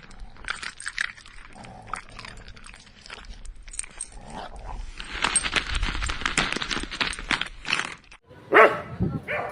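Street dogs barking, with many short barks overlapping, busiest in the second half. One loud, close bark comes near the end, just after a brief break in the sound.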